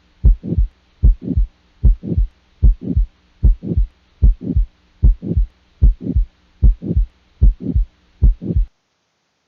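Recorded heart sounds of aortic stenosis: a steady lub-dub at about 75 beats a minute, with a systolic murmur that swells and fades between the first and second heart sounds. A faint steady hum lies under it, and the recording stops about a second before the end.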